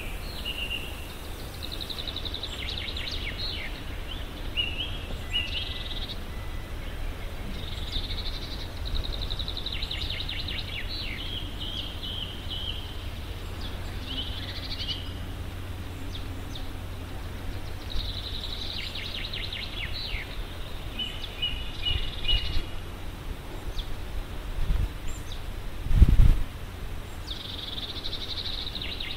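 Songbirds singing in short repeated phrases of rapid trills and chirps, with pauses of a few seconds between them, over a steady low rumble. A few dull thumps come in the last third, the loudest a little after three-quarters of the way through.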